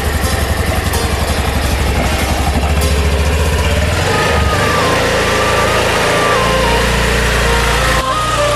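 Small motor scooter engine idling with a fast, even putter, then pulling away. About halfway through, background music with a stepping melody comes in over it.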